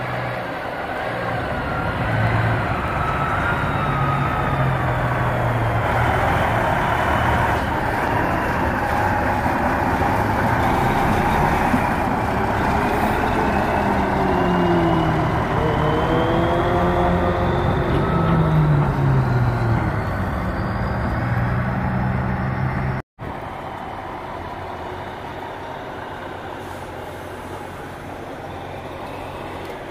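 Diesel engines of semi-trucks running as a tractor-trailer pulls past, its engine pitch rising and falling several times as it moves off. The sound breaks off abruptly about 23 seconds in and carries on quieter after.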